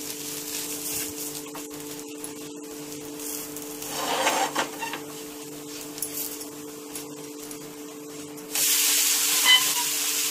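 Wooden spatula softly scraping under a dosa on a non-stick tawa, then about eight and a half seconds in a sudden steady sizzle as the dosa is flipped onto the hot pan. A steady low hum runs underneath.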